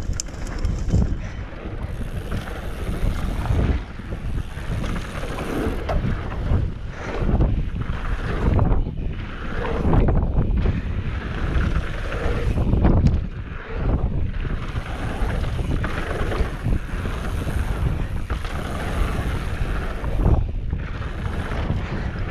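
Wind buffeting the microphone of a helmet camera on a mountain bike riding fast down a dirt trail, with steady tyre rumble that surges and dips and a few short knocks over bumps.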